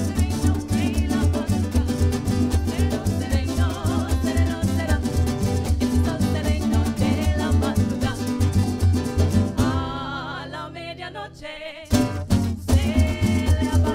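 Parang band playing live: women singing lead over strummed guitars with a steady pulsing bass beat. About ten seconds in, the instruments drop out for a couple of seconds, leaving the voices, and then the full band comes back in.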